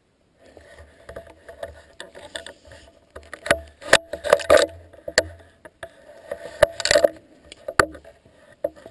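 Handling noise from a camera mounted on a shotgun as the gun is carried and moved: a run of irregular sharp knocks and clatter, loudest in the middle and about seven seconds in, over a faint steady hum.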